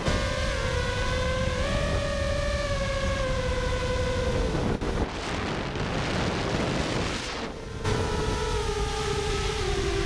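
Brushless motors of an iFlight Nazgul 6S FPV quadcopter whining in flight, their pitch drifting slowly with throttle, over steady wind rumble on the onboard GoPro's microphone. The whine briefly dips twice.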